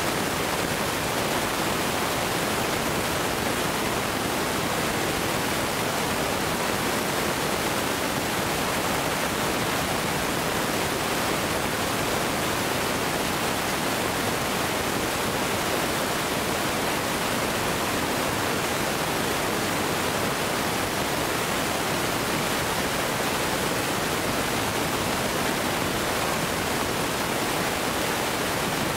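A steady, even hiss that never rises or falls, with no firework bangs or other sudden sounds.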